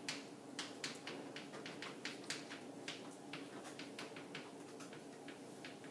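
Chalk tapping and scraping on a chalkboard as words are written: short, sharp, irregular clicks, several a second, over a faint steady hum.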